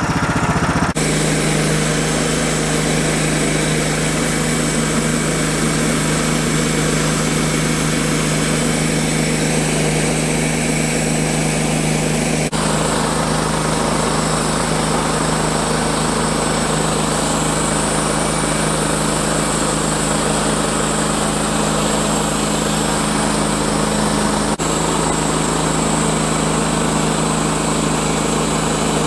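Small gasoline engine of a Woodland Mills HM-126 portable bandsaw mill running at a steady high speed while the band blade saws through a red oak log.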